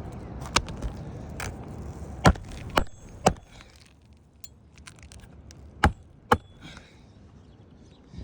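Hammer strikes on roof shingles and nails: a few light taps, then three sharp blows about half a second apart, and two more a couple of seconds later.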